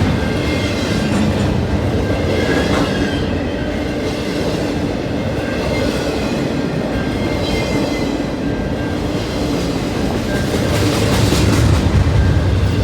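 Intermodal freight cars rolling past with a steady rumble, their wheels clacking over the rail joints. It grows louder for a couple of seconds near the end.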